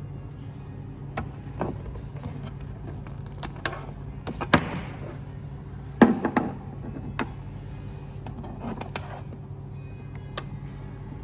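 Handling noises: a string of separate plastic clicks and knocks as charger plugs and connectors are handled and fitted together, the loudest about halfway through, over a steady low hum.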